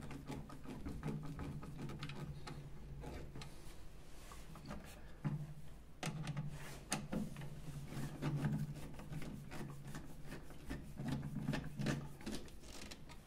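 Light clicks and rubbing of plastic parts as the levers and holder are fitted into a Geberit concealed-cistern actuator frame. Under them runs a low steady hum that drops out briefly about five seconds in.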